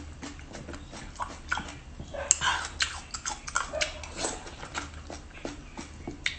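Close-up eating sounds of raw soy-marinated mud snails being spooned into the mouth and chewed: a steady run of small clicks and pops, with one sharper click about two seconds in.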